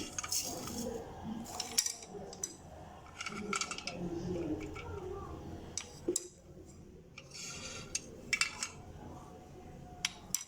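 Kitchen utensils clinking and scraping against dishes, in short separate bursts with a few sharp clicks.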